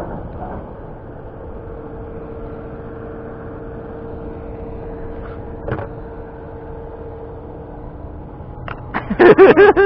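Boat engine idling with a steady hum, with a single short click about six seconds in. Near the end a loud, broken burst of a person's voice.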